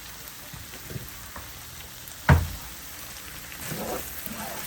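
Beef tips and mushrooms frying in a pan, a steady sizzle with a few light clicks. A single sharp knock about two seconds in is the loudest sound.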